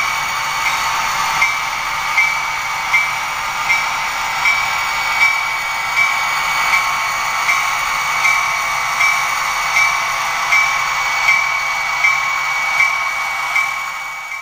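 The sound decoder of a Bachmann N-scale DD40 model diesel locomotive playing a steady engine sound with a bell ringing evenly about once every three-quarters of a second, heard through the model's tiny speaker, with almost no bass.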